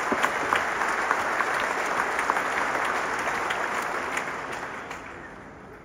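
Large concert audience applauding, many hands clapping at once, the applause dying away over the last couple of seconds.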